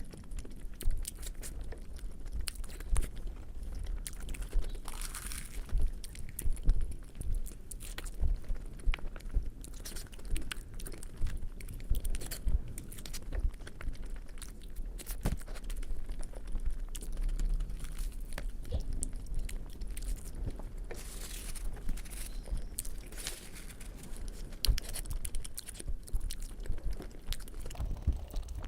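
Close-up chewing and wet mouth sounds of a person eating fried Indian flatbread with potato curry: irregular smacks and soft clicks with the odd crunch.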